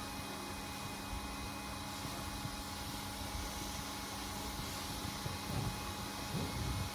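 Electric air pump running steadily with a constant hum, blowing air into a vinyl inflatable wolf, with a few low bumps near the end.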